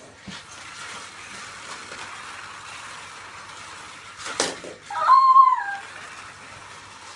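Electric toy slot cars running around a plastic track, a steady whirring hiss; about four seconds in a sudden clatter, then a child lets out a short high-pitched squeal, the loudest sound.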